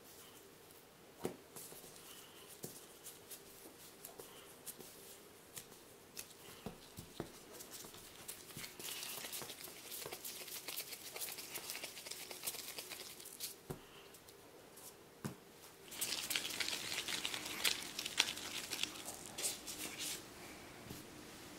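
Hands in plastic gloves shaping soft raisin dough into balls on a floured wooden board: the gloves crinkle and rustle against the dough, with scattered soft taps as pieces are pressed and set down. The rustling grows louder in the last few seconds.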